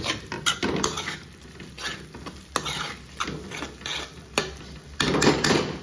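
Metal ladle stirring and scraping a thick onion-tomato masala around a steel kadhai: irregular scrapes and clicks against the pan over a light sizzle, with a louder run of scraping about five seconds in.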